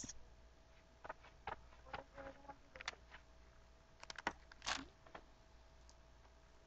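Faint scattered clicks and light rustles of small objects being handled, a quick cluster of them about four seconds in, over a faint steady hum.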